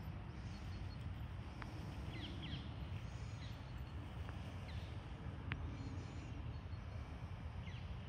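Wind rumbling on the microphone, with short high calls from a flock of crow-family birds: a cluster about two seconds in, a few more scattered after, and one near the end.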